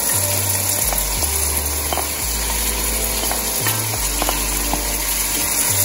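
Oil sizzling in a pot with scallion and onion frying in it, as shredded red herring is scraped off a plate into the pot with a wooden spoon. A few light clicks of the spoon against the plate.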